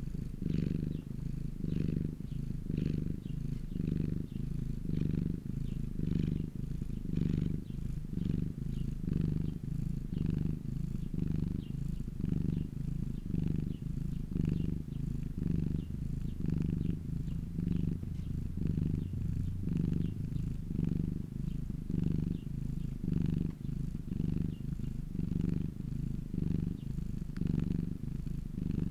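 A domestic cat purring steadily, the purr swelling and fading in an even rhythm with each breath.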